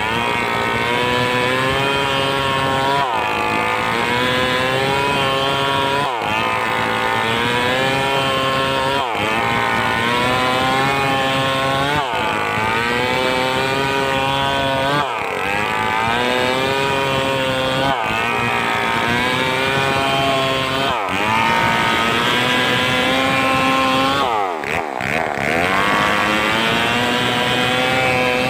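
Stihl 038 two-stroke chainsaw running loud and steady, its engine pitch dipping and recovering about every three seconds as it works through hard coconut wood.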